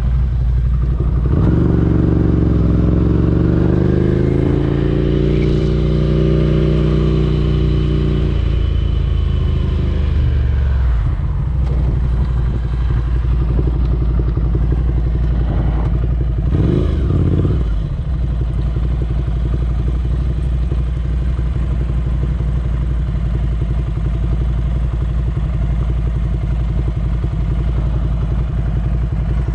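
Ducati Scrambler Desert Sled's L-twin engine running under way. Its pitch rises steadily over several seconds near the start as the bike accelerates, then drops back to steady cruising, with a brief rev about halfway through.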